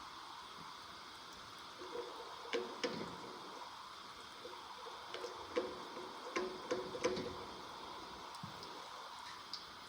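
A series of sharp metallic clinks and taps, some ringing briefly, from hand tools working on a 427 big-block Chevy engine while its cylinder head is being removed. They come in two clusters, one about two seconds in and one around the middle, over a steady faint hiss.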